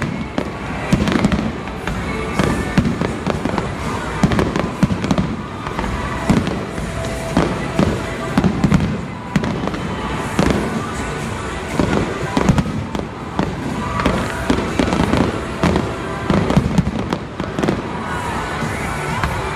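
Aerial fireworks bursting in quick succession, a steady run of bangs and crackles, with music playing underneath.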